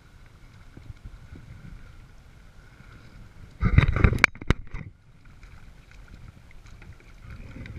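A hooked fish splashing at the surface beside a kayak for about a second, midway, with a couple of sharp knocks in it, over a steady wash of wind and small waves.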